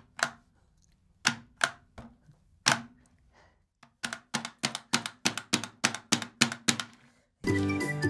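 Sharp clicks and taps of plastic Hot Wheels track pieces being handled on a wooden table: a few scattered ones, then a quick run of about four a second. Upbeat music comes in suddenly near the end.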